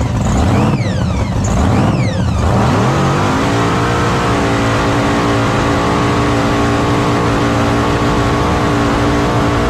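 Jet boat engine heard from on board: a few quick revs rising and falling in pitch, then a climb about two to three seconds in that settles into a steady high-revving run as the boat goes down the lake.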